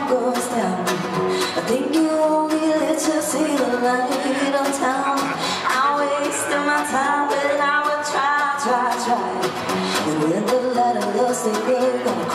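Live acoustic band music: women singing in harmony over acoustic guitars and upright bass, with a steady beat.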